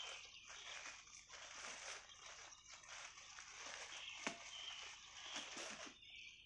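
Faint forest ambience: a steady hiss with irregular small rustles and clicks, and a few short high chirps around the middle.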